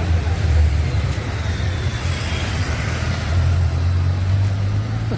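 Street traffic, with a motor vehicle's engine running close by as a steady low rumble and a faint falling whine in the middle.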